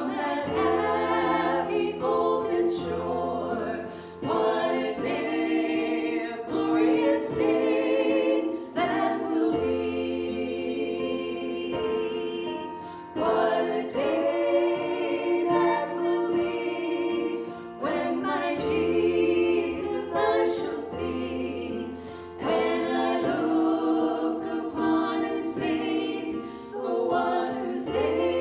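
Congregational worship song: a group of voices singing together in phrases a few seconds long, over a low sustained accompaniment.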